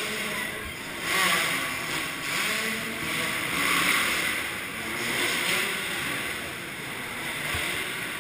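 Motocross bike engines running and revving, the sound swelling and easing several times.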